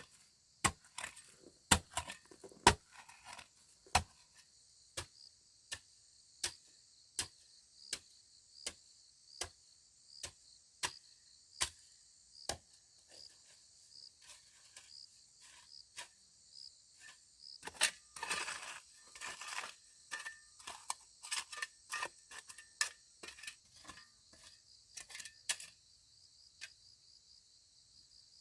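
Repeated sharp strikes of a tool on wood, steady at a little over one a second for the first half, then a scraping, rustling stretch and quicker, lighter knocks. Crickets chirp steadily underneath.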